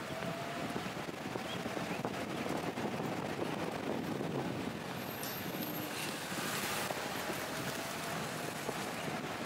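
Vehicle driving along a road: a steady rumbling noise with dense crackling and rattling throughout.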